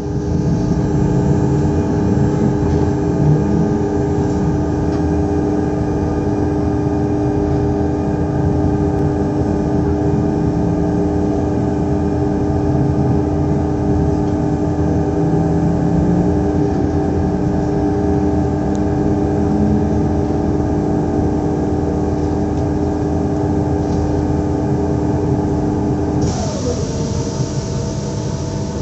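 Z2N electric multiple unit Z 20788 standing at the platform, its on-board equipment humming steadily with several held tones. About 26 seconds in, one tone drops in pitch as a machine winds down, and a loud hiss starts.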